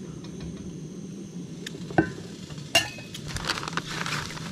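Gas camp stove burner running with a steady low roar, with two sharp metallic clinks of dishware about two seconds in and again just under three seconds in, then a crackling hiss near the end.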